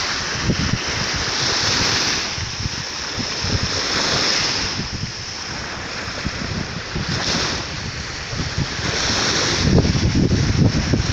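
Sea waves washing ashore, a broad hiss that swells and fades every couple of seconds. Wind buffets the microphone with a low rumble, strongest near the end.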